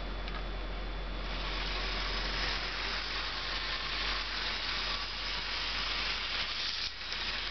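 Bachmann HO-scale Santa Fe diesel locomotive running around the track under transformer power: its small electric motor and running gear make a steady whirring hiss that starts about a second in as the throttle is turned up.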